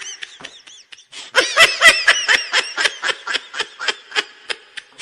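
High-pitched laughter in a rapid run of short bursts, several a second. It starts about a second in and trails off near the end.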